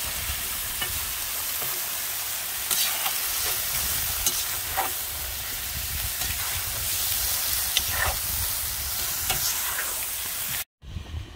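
Chunks of lamb sizzling as they fry in hot sunflower oil in a cast-iron kazan. A metal skimmer stirring them scrapes and knocks against the pot now and then. The sound drops out for an instant near the end.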